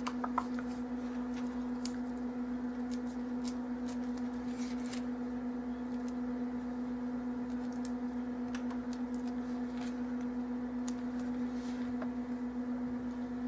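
Scattered small ticks and crinkles of hands peeling backing off foam adhesive dimensionals and handling a paper die-cut, over a steady low hum.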